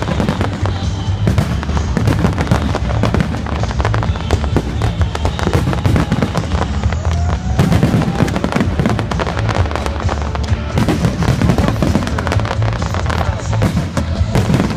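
Fireworks finale: a dense, unbroken barrage of rapid bangs and crackling shells.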